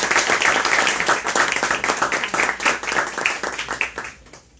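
Small audience applauding, many hands clapping together; the applause dies away about four seconds in.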